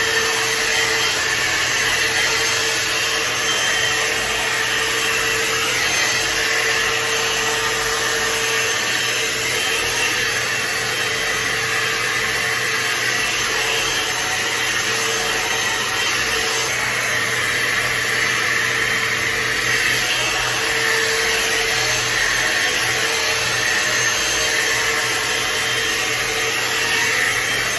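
Hot air brush styler (a hair dryer brush) running on its high setting while drying hair: a steady rush of blown air with a faint humming tone.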